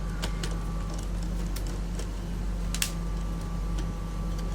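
Scattered light clicks and taps of hands working on a flatbed scanner's plastic parts and logic-card cable, about half a dozen with a sharper one midway, over a steady low electrical hum.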